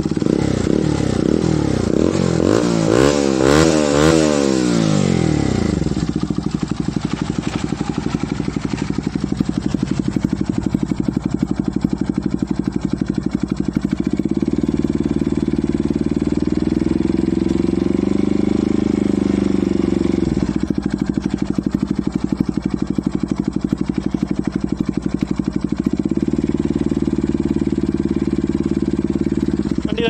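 Bajaj Pulsar NS 160's single-cylinder engine running just after start-up, blipped several times in quick succession in the first few seconds, then settling to a steady idle, with engine speed raised and held for several seconds about halfway through and again near the end. It runs with its charging circuit repaired, now charging the battery at about 13.7 V.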